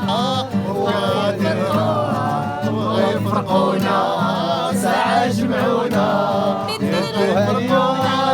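Background music with a singing voice over steady low sustained notes.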